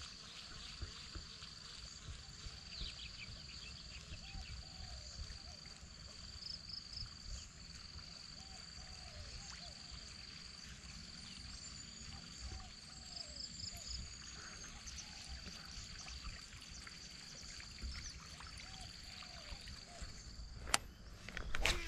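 Quiet waterside ambience: a steady high insect trill with short pulsed chirps in it, over a low even rumble. A few sharp clicks near the end.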